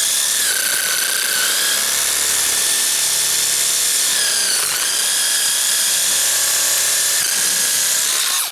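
Power drill driving a hole saw to cut a hole, running at a steady high whine. The pitch dips briefly about halfway and again near the end as the saw bites, then the drill stops abruptly at the end.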